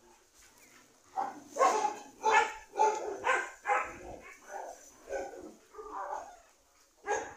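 A puppy barking in a quick string of short barks, about two a second, starting about a second in and trailing off toward the end, barking at a cat in play.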